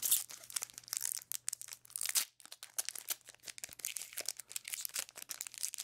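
Plastic Magic: The Gathering booster-pack wrapper crinkling and tearing as it is pulled open by hand, a dense run of irregular crackles.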